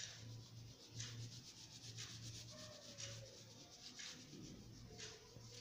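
Faint scratchy strokes of a red oil pastel rubbing on drawing paper, about once a second, as colour is laid onto a drawing.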